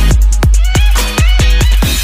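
Electronic dance music with a deep kick drum that drops in pitch on each hit, several times a second, under gliding synth notes.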